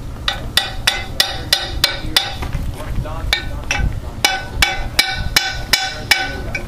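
Repeated sharp metal-on-metal strikes, about three a second in two runs with a short break about halfway through, each leaving the sail drive's propeller ringing briefly: hammering to knock the propeller loose from its shaft.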